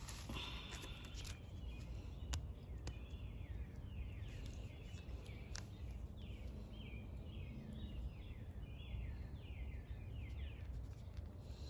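A small bird calling over and over in short downward-sliding chirps, about two a second, over a low steady outdoor rumble. A few faint clicks come through.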